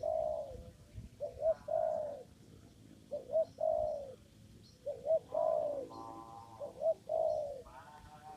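Spotted dove cooing: a repeated phrase of two short notes followed by a longer falling coo, about five times.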